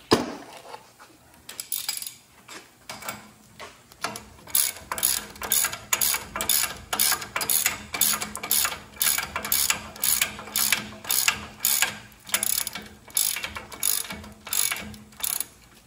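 Hand ratchet clicking as it tightens the nut onto the stud of a new outer tie rod end. The clicks come in short strokes: a few scattered at first, then a steady run of about two strokes a second from about four seconds in.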